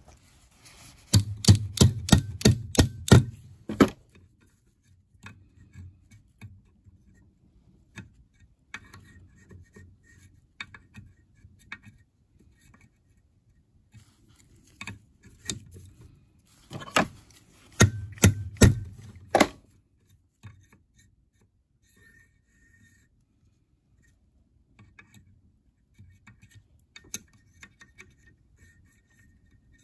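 Light metal taps on the ground electrode of a spark plug clamped in a vise, closing the gap toward 0.9 mm. The taps come in two quick runs of about seven or eight strikes each, near the start and again about halfway through, with faint small clicks in between.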